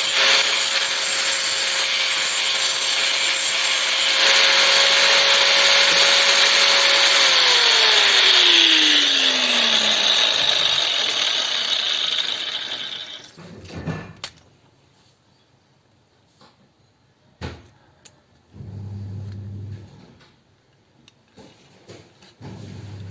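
Small electric power tool running under load with a grinding, rubbing noise, likely working the copper for a soldering iron tip. About seven seconds in it is switched off, and its whine falls steadily as the motor spins down. Then come a few light clicks and handling knocks.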